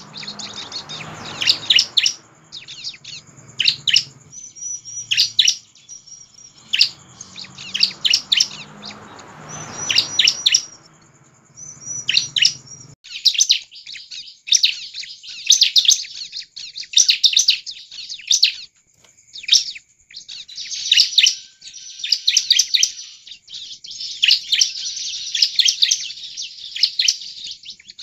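Bar-winged prinia (ciblek) in full, vigorous song: rapid runs of sharp, high chirps and trills, repeated in bursts with short curving whistled notes mixed in.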